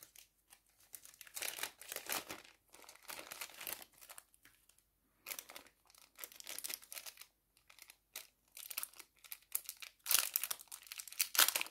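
Crinkly jewelry packaging rustling in irregular bursts as it is handled and opened to take out a ring, loudest near the end.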